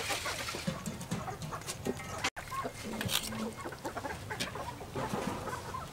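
Chickens clucking in short calls, with a few soft clicks and water sounds. The sound cuts out briefly a little over two seconds in.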